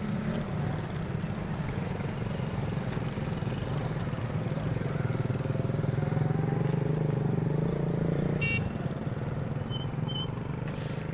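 A motor engine running with a low hum that shifts in pitch and drops away about eight and a half seconds in. Two short high tones follow near the end.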